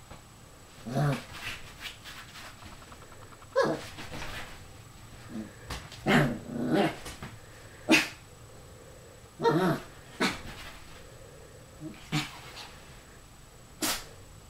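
Lhasa apso puppy barking and growling at its own reflection in a mirror: about nine short outbursts at irregular intervals, a few running into two or three quick barks together.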